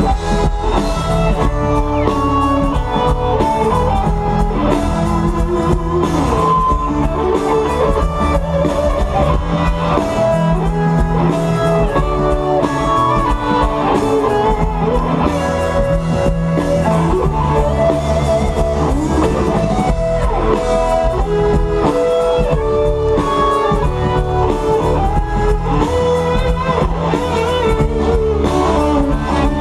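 Jam band playing live over a festival sound system, heard from the audience: guitar melody lines with bent notes over bass and a drum kit, loud and continuous.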